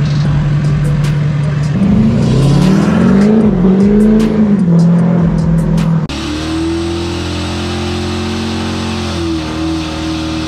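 Classic pickup truck's engine idling steadily, then revved several times, its pitch rising and falling, until it cuts off suddenly about six seconds in.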